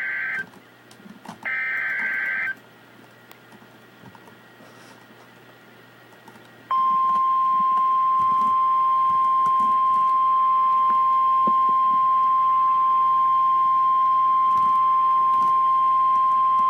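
Emergency Alert System tones for a severe thunderstorm warning. First come two harsh, buzzing SAME header data bursts about a second long each, close together. After a pause of about four seconds, the steady 1050 Hz NOAA Weather Radio alert tone sounds loud and unbroken for about ten seconds and then cuts off suddenly.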